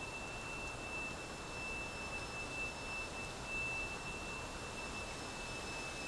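A steady high-pitched whine, unbroken throughout, over a background hiss and low rumble.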